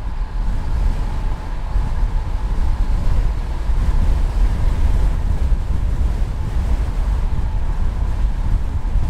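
Loud, steady wind rushing over an action camera's microphone on a road bike descending fast, with a deep rumble and no break.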